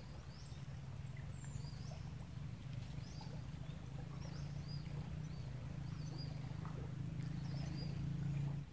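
Small birds chirping repeatedly, short high calls again and again, over a steady low hum that cuts off suddenly near the end.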